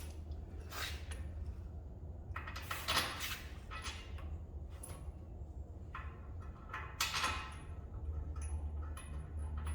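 Scattered metallic clicks, knocks and scrapes as a brake caliper bolt is fitted and threaded in by hand, over a steady low hum.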